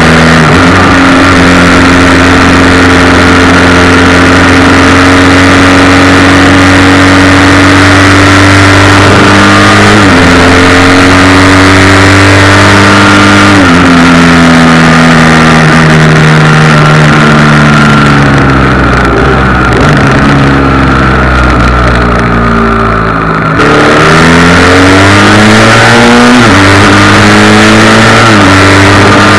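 Motorcycle engine heard from a bike-mounted action camera, pulling hard with two quick upshifts in the first half, then winding down for several seconds with the throttle closed before picking up again and shifting up near the end. A steady buzz of a rattling camera mount and wind noise run over the engine.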